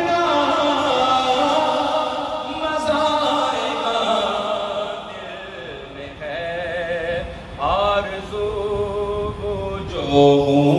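A man singing devotional praise verse unaccompanied into a microphone, with long held notes that waver in pitch. He sings more softly around the middle.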